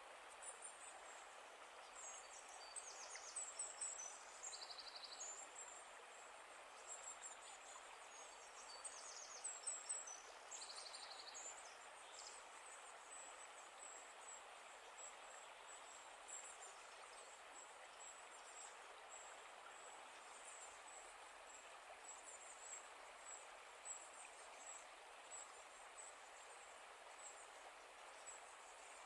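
Faint outdoor ambience: a steady soft hiss with birds chirping and trilling, busiest in the first dozen seconds, then a thin run of high chirps.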